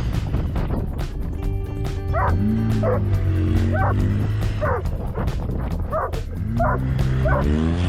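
A Doberman yipping, about six short high yips spaced roughly a second apart starting about two seconds in, over background music.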